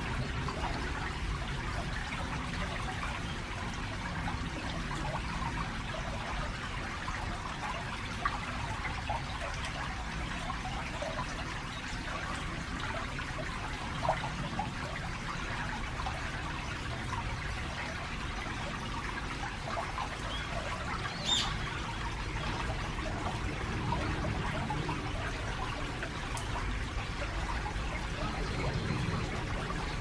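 A shallow stream trickling and babbling over stones in a concrete-walled channel, under a steady low rumble of traffic from a busy road and bridge nearby. A single brief high-pitched sound stands out about two-thirds of the way through.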